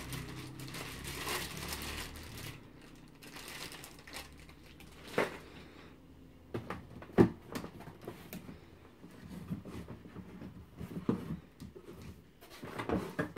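Plastic wrapping crinkling and cardboard rustling while a box is unpacked, with several sharp knocks, the loudest about seven seconds in.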